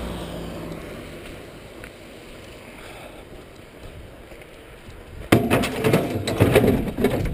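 A long steel rail with a small motor housing dropped and shoved into a pickup truck's scrap-filled metal bed. It makes a sudden run of loud metal clanks and rattles about five seconds in, lasting about two seconds.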